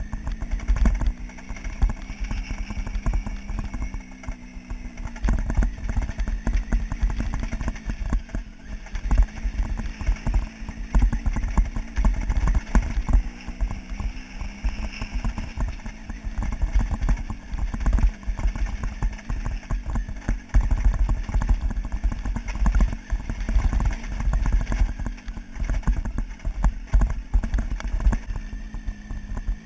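Motorcycle engine running at low, fairly steady revs while the bike rides over a loose stony gravel track, with constant knocking and rattling from the rough surface and a deep rumble underneath.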